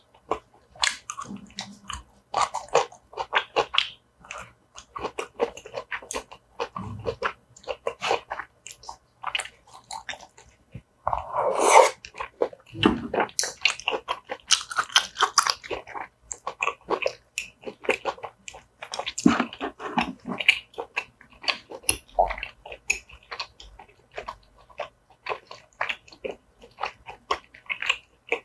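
Close-miked mouth sounds of eating tteokbokki: wet chewing, biting and smacking of chewy rice cakes and vegetables in thick sauce, with one louder sound lasting about a second near the middle.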